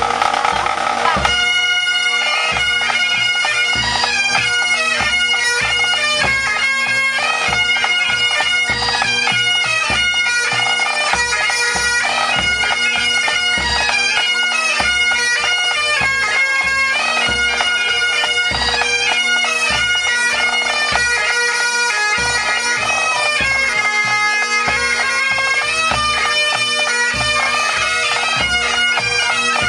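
A Scottish pipe band's Great Highland bagpipes played together. Steady drones sound under a lively chanter melody that begins about a second in.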